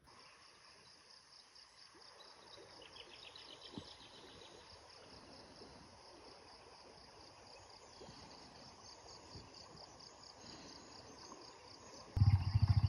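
Insects chirping in a steady, fast pulsing rhythm over a faint hiss of flowing river water. Near the end a loud, low motor hum suddenly cuts in.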